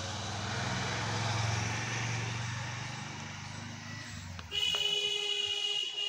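A motor vehicle passing by, its low engine rumble swelling and then fading. About four and a half seconds in comes a loud, steady horn blast that lasts about a second and a half.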